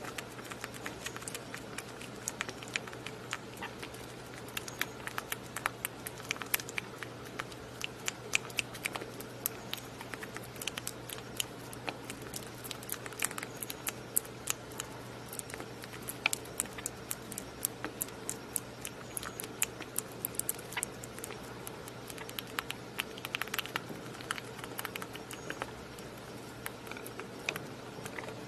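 Young rabbit chewing a raspberry with wet smacking noises: a rapid, irregular run of small sharp clicks, over a faint steady hum.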